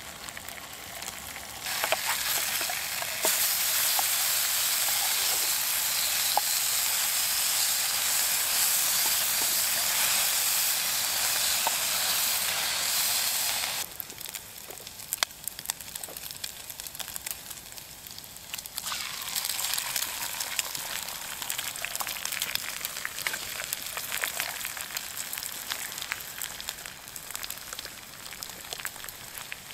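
Bacon sizzling in hot oil in a frying pan, with scattered sharp pops. The sizzle is loud for the first dozen seconds, drops abruptly about 14 seconds in, and swells again a few seconds later.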